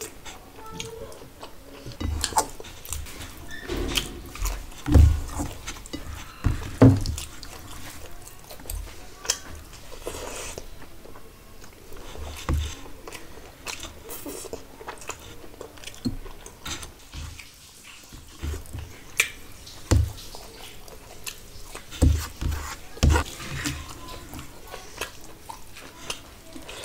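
Close-miked chewing and biting of rice, curry and fish eaten by hand, with wet mouth sounds and irregular clicks and soft thumps.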